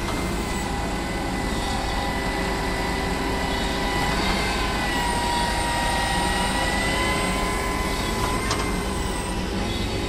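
Truck-mounted concrete boom pump and transit mixer running steadily during a slab pour: a diesel engine drone with a high steady whine that dips slightly in pitch midway.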